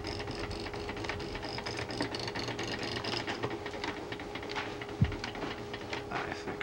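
Dot-matrix printer's paper feed stepping continuous tractor-feed paper along in an even run of clicks, about four a second, as the paper is set up for printing. Then come irregular clicks and handling of the printer, with one sharp thump about five seconds in.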